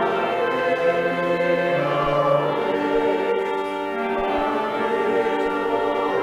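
Church choir singing in long held notes that change pitch every second or two.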